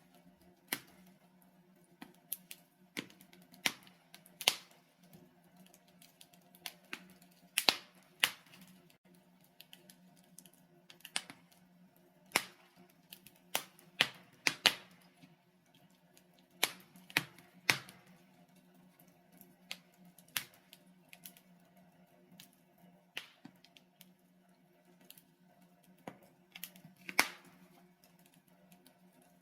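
Wood fire burning in a fireplace: logs crackling with irregular sharp pops, a few of them loud, over a faint steady low rumble of the flames.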